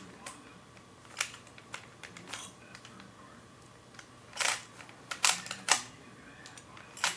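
Plastic Rubik's Cube layers being twisted by hand: a run of separate sharp clacks and short scraping turns, spaced irregularly, with a quick cluster of twists near the middle.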